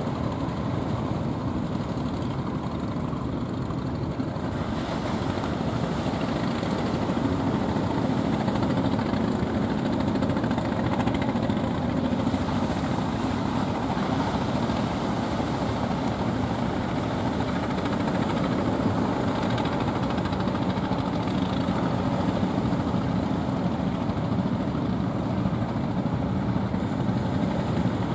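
Motors of fishing boats coming in from sea make a steady, continuous drone. A hiss over it grows louder about four seconds in.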